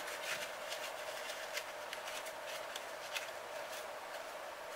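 Toothbrush and paper towel scrubbing and wiping the metal front housing of an Enya 90-4C four-stroke glow engine: short, irregular scratchy rustles over a faint steady hum.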